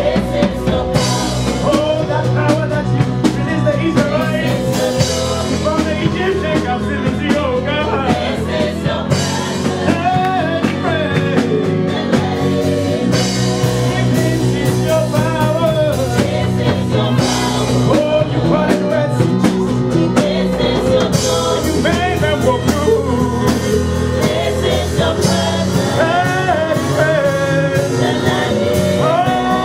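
Live gospel worship song: a lead singer and a group of backing singers on microphones over a band with a drum kit, the congregation singing along.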